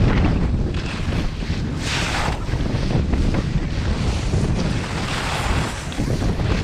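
Wind buffeting a GoPro microphone during a fast ski descent, with the hiss and scrape of ski edges on hard, icy piste snow. The scraping swells about two seconds in and again around five seconds, as the skis turn.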